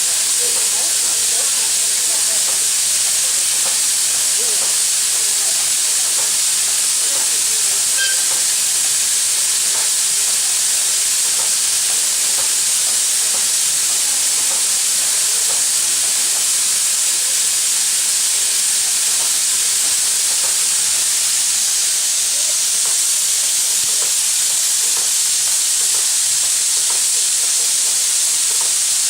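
Soviet L-class steam locomotive (Л-4600) venting steam: a loud, steady, high-pitched hiss.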